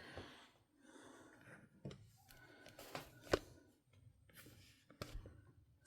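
Faint handling noises from a model locomotive being lifted and turned by hand: soft rustling with a few light clicks and knocks, the sharpest about three seconds in.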